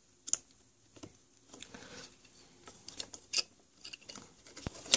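Small metal terminal clips and a plastic housing being handled and pressed into place: a few sharp clicks and light scrapes over faint rustling.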